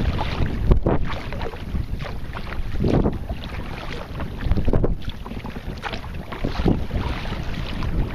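Wind buffeting the microphone over water lapping and splashing around a sea kayak under sail, with brief louder surges about every two seconds.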